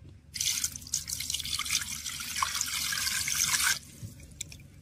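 Water pouring into a clay pot over a whole plucked pigeon, splashing for about three and a half seconds, then cutting off sharply.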